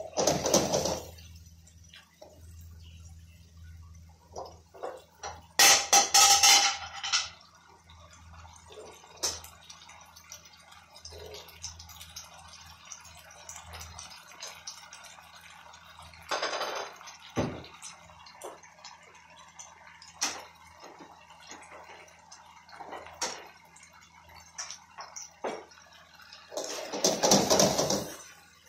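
A spatula stirs and scrapes saucy noodles around a black wok in four loud bursts. Between the stirs the sauce bubbles and crackles in the hot wok with many small pops.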